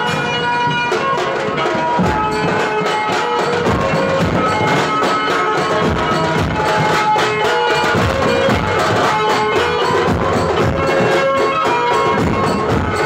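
Loud dhumal band music: rapid drumming under a held, reedy melody line, playing without a break.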